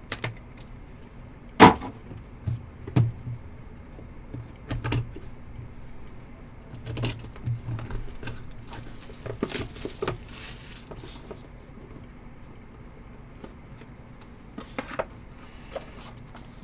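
Trading cards being handled and flipped through, with scattered clicks, taps and rustles, the sharpest about two seconds in. A low steady hum runs underneath.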